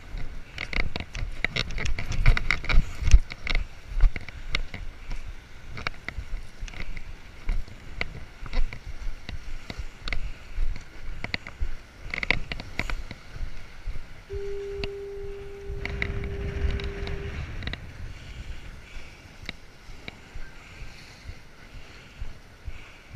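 Lake water washing against the break wall's rocks, with wind buffeting the microphone and irregular bumps that are heaviest in the first few seconds. A little past halfway a single steady tone sounds for about three seconds.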